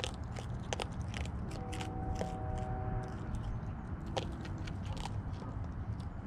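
Raccoon chewing and crunching dry pet food kibble, a quick irregular run of crisp crunches.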